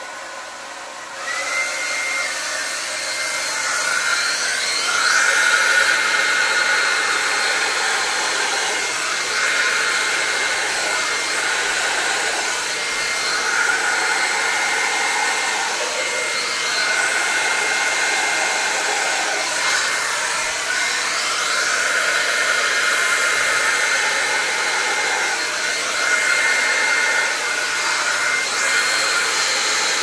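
Handheld hair dryer with a concentrator nozzle blowing steadily, with a high whine. It jumps louder about a second in as it is turned up to high, then the rush of air rises and falls a little as it is swept over the canvas.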